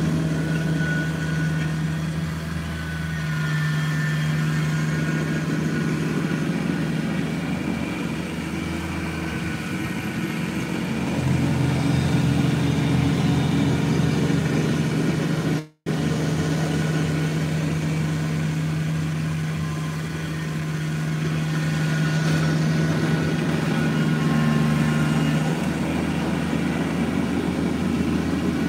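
Kubota BX23S compact tractor's three-cylinder diesel running steadily while driving its front-mounted snowblower through snow; the engine and blower noise swell and ease as the tractor works back and forth. The audio cuts out for an instant about halfway through.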